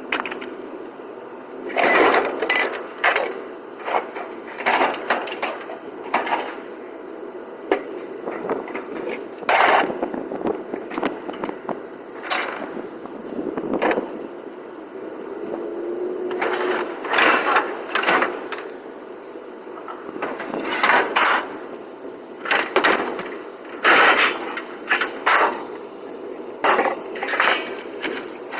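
Scrap metal and junk being thrown off a trailer onto a pile, clattering and banging in a long irregular string of impacts.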